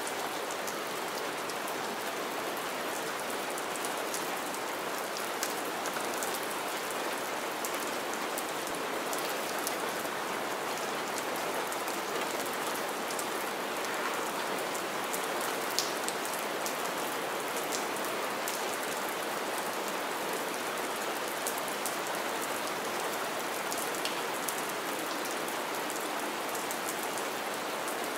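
Steady rain falling onto wet ground and shallow puddles: an even hiss with scattered individual drop splashes.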